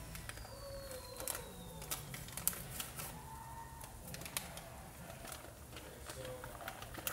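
Paper packet of onion soup mix crinkling and rustling as it is handled and torn open, giving scattered sharp clicks and crackles at uneven intervals.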